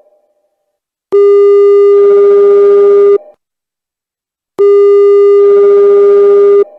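Telephone ringing, two rings of about two seconds each with a pause of about a second and a half between them: a steady tone with a buzzier layer joining partway through each ring. The call goes unanswered.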